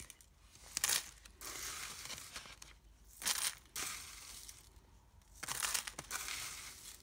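A clear plastic page protector crinkling while sequins are scooped and pushed into it, the loose sequins rustling and scraping against the plastic. It comes as a run of irregular rustles with sharper crackles about a second in and again past three seconds.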